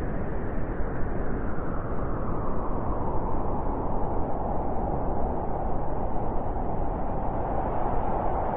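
Blizzard wind blowing hard as a steady, dense rush, with a howl that settles onto one pitch and grows stronger a few seconds in.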